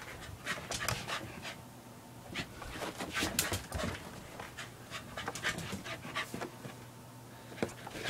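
Corgi panting from play, in short uneven breaths.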